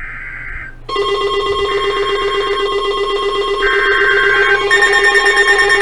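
Emergency Alert System signalling. A short SAME data burst makes a screechy digital warble. At about a second in, a loud, harsh, steady EAS attention tone starts and holds, and two more data bursts are heard over it. This is the start of a new alert.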